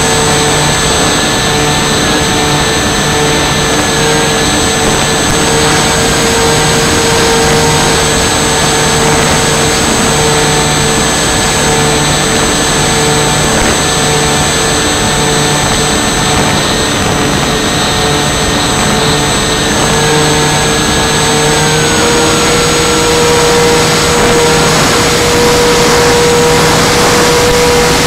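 The Twin Dream model plane's electric motors and propellers whining steadily in flight, heard through the airframe over heavy wind rush on the onboard camera's microphone. Their pitch shifts slightly about two-thirds of the way through, as the throttle changes.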